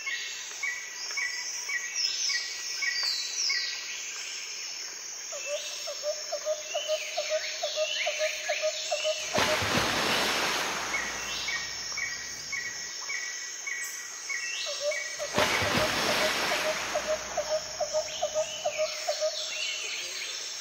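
Birds calling in dry forest: a run of short repeated chirps, a fast pulsed trill and quick falling whistles, over a steady hiss of background noise. Twice a rush of noise swells up for about two seconds.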